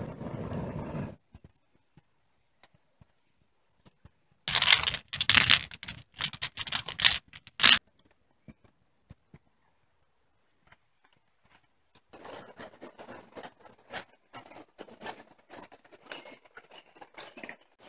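Sharp crackling and scraping by a campfire where stones are heating, then lighter irregular splashing and clicking of stones at a river's edge.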